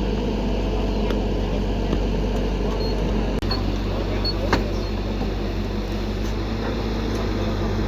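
Excavator engine running steadily, with a single sharp click about four and a half seconds in.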